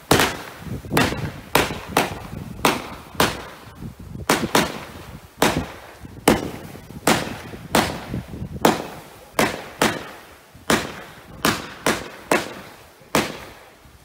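A fireworks battery (Röder Kometenschauer Grün) firing comets one after another. About twenty sharp launch reports come at an uneven pace of roughly one and a half a second, each with a short decaying tail.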